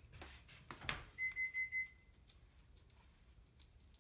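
Four short, high electronic beeps in quick succession about a second in, the loudest thing heard. Before them, soft rustling of hands working double-sided foam mounting tape along a loudspeaker stator's edge.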